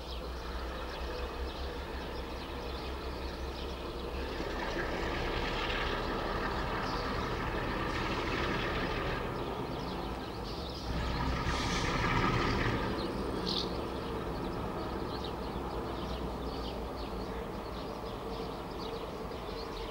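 ALCO DL500C diesel-electric locomotive running at low speed while shunting, its diesel engine giving a steady low drone that swells louder twice, a few seconds in and again just past the middle.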